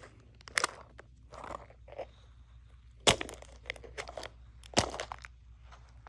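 Hatchimals toy egg shell cracking and crunching as it is pressed and broken open by hand: a series of separate cracks, the sharpest about three seconds in and again just before five seconds, with smaller crunches between.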